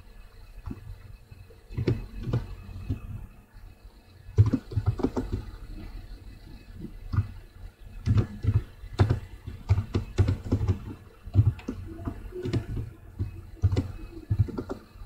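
Typing on a computer keyboard: irregular keystroke clicks in quick runs, with a short pause about three seconds in.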